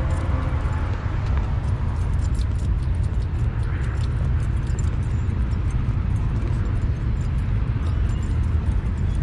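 Wind buffeting the microphone of a camera carried on a walk, a steady low rumble, with light, rapid clicking and jingling over it.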